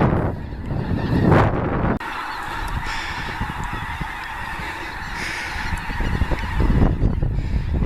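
A large flock of snow geese calling together, a dense, continuous chorus of high honks. A low rumble of wind on the microphone covers the first two seconds, stops abruptly, and comes back near the end.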